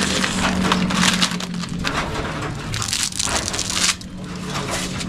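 Dry spaghetti being snapped by hand, a dense run of crisp cracking and crunching that eases off near the end.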